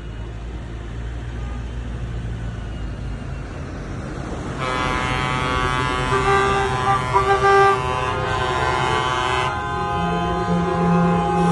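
A convoy of trucks and vans drives past with engine and tyre noise; from about a third of the way in, vehicle horns blow in long held blasts, several at once, sounded in protest.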